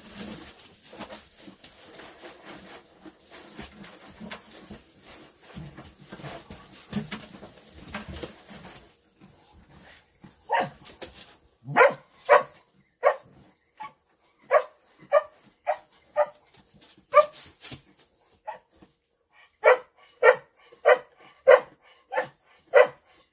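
Dry hay rustling as a dog digs and roots through it, then from about ten seconds in a dog barks over and over, some twenty short barks, one or two a second.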